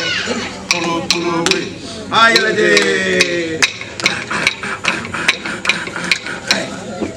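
Clapsticks beating a steady, quick rhythm of sharp wooden clicks, about three a second, accompanying male voices chanting a Gamilaraay ceremonial song; the chanting fills the first half, with a long falling glide about two seconds in, and after that the clicks go on alone.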